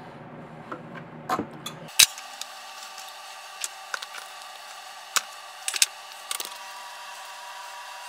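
Pliers and fingers working the hoses and plastic fittings on the heating element of an opened-up KitchenAid drip coffee maker: scattered clicks and knocks, the sharpest about two seconds in, over a steady hum.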